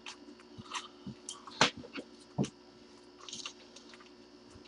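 Scattered light clicks and crinkles of trading cards, a plastic card holder and foil pack wrappers being handled, with two sharper clicks in the middle, over a faint steady hum.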